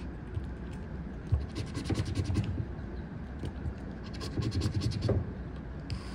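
A coin scratching the coating off a scratch-off lottery ticket on a table: two bursts of quick rasping strokes, about one and a half seconds in and again about four seconds in, as two squares are uncovered.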